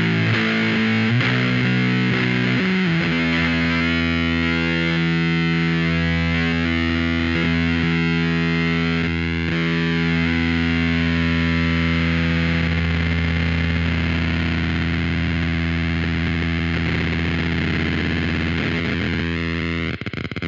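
Electric guitar played through distortion and effects pedals: a few quick chord changes, then one chord held and left to sustain until it stops near the end.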